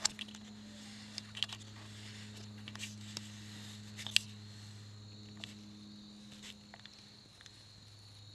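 Steady low electrical hum with a faint high whine, and a scatter of sharp clicks and taps: handling noise on a Canon Rebel T5 DSLR, picked up by its built-in microphone while the lens is focused by hand. Most of the clicks come in the first second and around the middle, with the loudest single click near the middle.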